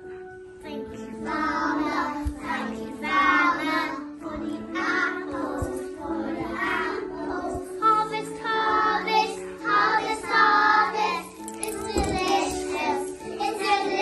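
A group of young children singing a song together over a musical accompaniment with steady held notes.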